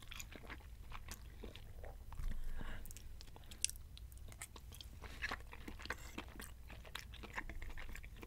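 A man chewing mouthfuls of spaghetti Alfredo and sausage, with many short, irregular mouth clicks and one sharper click a little past three and a half seconds in.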